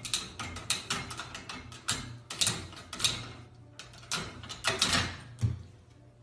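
A rapid, irregular series of knocks and clatters, as of hard objects being bumped and rattled.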